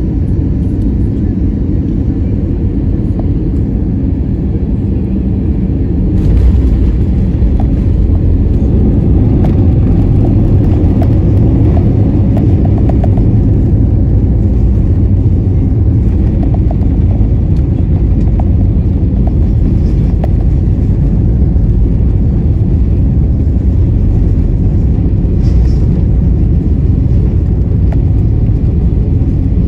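Cabin sound of an Airbus A320 with CFM56 engines landing: a steady rush of engine and airflow noise that grows louder about six seconds in as the aircraft touches down, followed by runway rumble with light rattles during the rollout.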